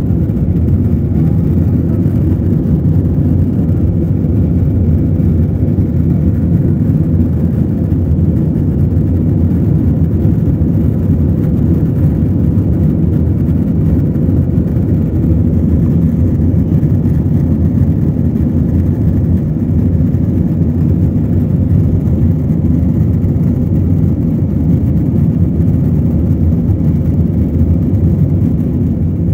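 Cabin noise of a jet airliner climbing just after takeoff: the engines at high power and the rushing air make a loud, steady low drone.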